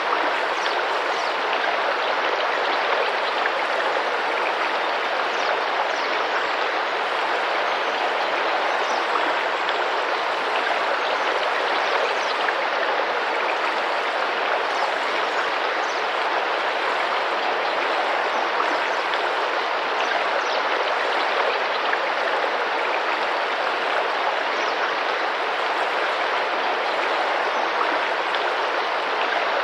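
Tropical rainforest river flowing and splashing in a steady, even rush, with a few faint high bird chirps scattered through it.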